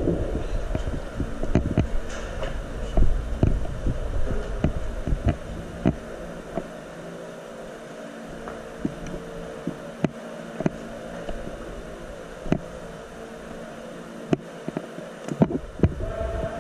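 Footsteps and gear movement of an airsoft player walking on a concrete floor, with low thumping that is heavy for the first few seconds and then eases off. Scattered sharp clicks and pops sound over a steady hum.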